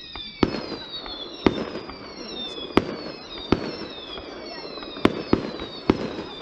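Fireworks display: about seven sharp bangs at irregular intervals, with a pair about five seconds in, over overlapping high whistles that glide down in pitch.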